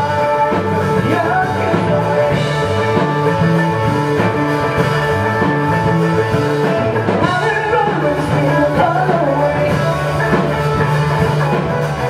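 Live rock band playing: a man singing over electric guitars and a drum kit.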